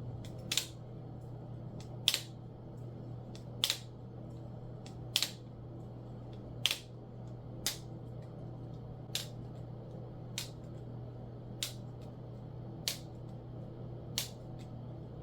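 A FlippingFlys DragonFly plastic balisong trainer being flipped, with a short, sharp click about every second and a half, eleven in all, over a steady low hum.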